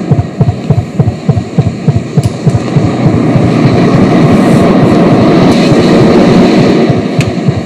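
Live experimental electronic music: a fast run of low, throbbing pulses, about four a second, that swells into a dense noisy drone through the middle, with the pulse coming back near the end.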